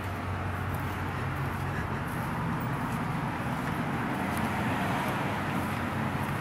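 Street traffic noise: a vehicle engine running with a steady low hum over road noise, slowly getting a little louder.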